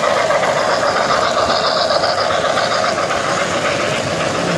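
Model trains running on three-rail track: a steady mechanical rumble of the locomotive motor and the wheels running over the rails.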